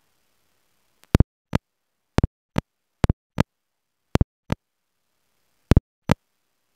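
Sharp clicks over near silence in a repeating pattern: a quick double click, then a single click about a third of a second later, about once a second. The pattern starts about a second in and pauses briefly past the middle.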